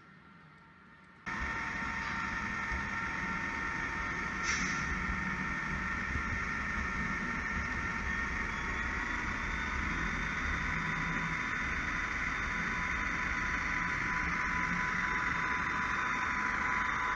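HO-scale model diesel locomotives pulling a freight train along the layout track: a steady whine of several held tones over a low rolling rumble, starting abruptly about a second in. There is a brief hiss about four seconds in.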